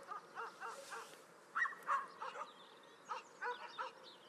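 Distant dogs barking: faint, short yapping barks coming in quick runs with brief pauses between them.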